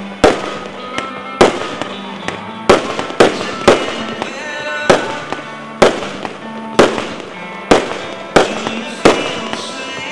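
Aerial fireworks bursting in a rapid string of sharp bangs, about a dozen, half a second to a second apart, with music playing underneath.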